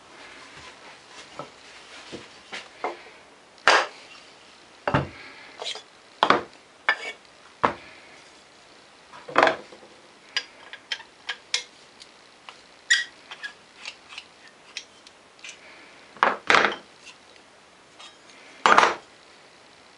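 A steel plane iron and its cap iron being handled, giving irregular sharp metallic clinks and knocks, some much louder than others.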